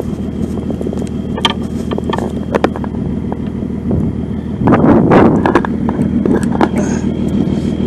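Vehicle engine idling steadily, with scattered clicks and knocks of work at a truck's door and a louder clatter about five seconds in.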